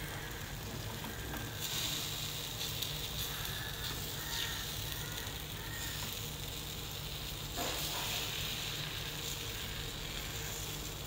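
Paniyaram batter frying in oil in a cast-iron kuzhi paniyaram pan over a low flame, a steady soft sizzle. A couple of faint short taps come as a knife and stick turn the balls.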